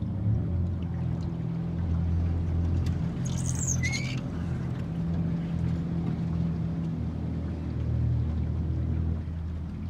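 Boat motor running with a steady low hum while under way, and a short bird squawk about three and a half seconds in.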